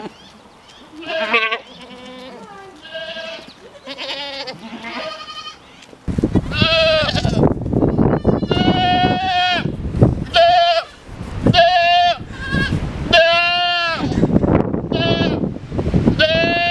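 Kid goats bleating, many short overlapping calls. About six seconds in the bleating gets louder and denser, and a low rumble joins in underneath.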